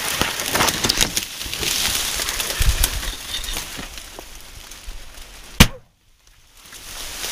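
Dry stalks and leaves crackling and snapping as they are pushed through, with many short sharp cracks. One much louder crack comes about five and a half seconds in, after which the sound drops out for about a second.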